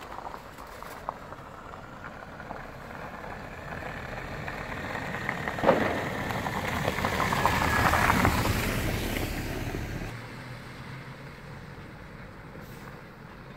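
A car drives past on a snow-covered street. Its noise grows over several seconds, is loudest about eight seconds in, with a sharp click near six seconds, then fades as it moves away.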